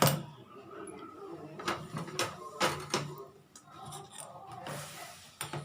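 A metal kadhai (wok) being set down on the stove: several light knocks and clatter, with a brief hiss near the end.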